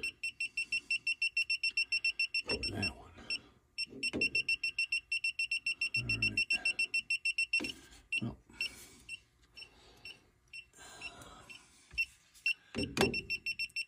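Klein Tools ET310 circuit breaker finder receiver beeping rapidly, about eight short high beeps a second, in two long runs with a brief break near four seconds, stopping about eight seconds in. The rapid beeping is its signal that it has found the breaker carrying the transmitter's circuit. Low handling knocks and rustles follow.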